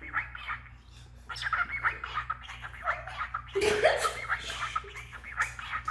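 Young male cockatiel chattering and warbling in rapid short notes, its mumbled attempts at mimicked speech, with a louder burst about three and a half seconds in.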